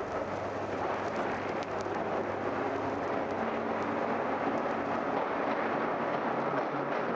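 Freight train passing: a steady rumble and rattle of the cars with occasional faint clicks, from an old vinyl sound-effects recording.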